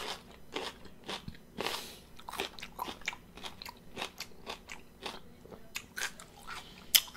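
Close chewing of a raw red bell pepper, with crisp crunches a few times a second and a louder crunch near the end.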